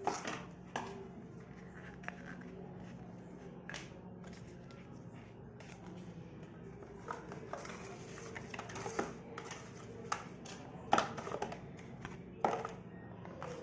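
A smartphone box and its packaging being handled: scattered clicks, taps and short rustles over a low steady hum, the sharpest knocks a little before the end.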